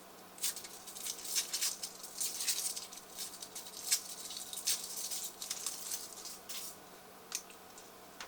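Foil wrapper of a chocolate surprise egg crinkling as it is peeled off, in irregular crackles that stop about a second before the end.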